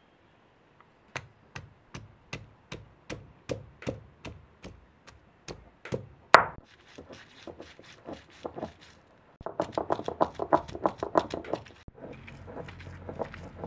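Knife chopping on a cutting board in steady strokes, about three a second, with one louder ringing knock midway, then a run of faster chopping.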